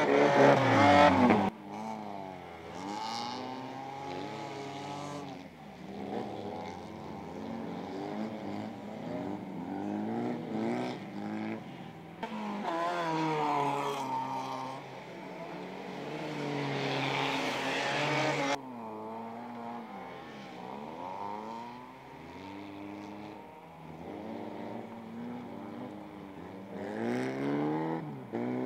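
Folkrace cars' engines racing on a snow-covered dirt track, rising and falling in pitch again and again with gear changes and throttle lifts. The loudest is a close pass at the start, which cuts off sharply about a second and a half in.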